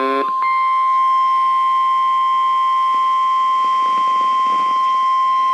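Weatheradio Canada's 1050 Hz warning alarm tone: one steady, unbroken high tone, the signal that an alert or test message follows.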